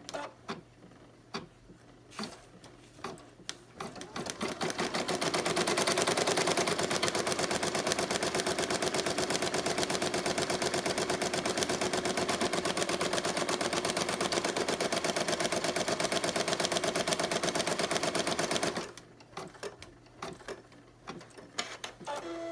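Home embroidery machine sewing a placement outline onto hooped stabilizer: a fast, even run of needle strokes that speeds up about four seconds in and stops a few seconds before the end. Scattered clicks come before and after the run.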